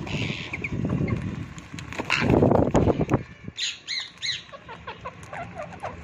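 Rose-ringed (Indian ringneck) parakeets flapping their wings in bursts as they land and shuffle around a food plate, loudest about two seconds in. A quick run of high-pitched calls follows just past the middle, then softer, lower calls.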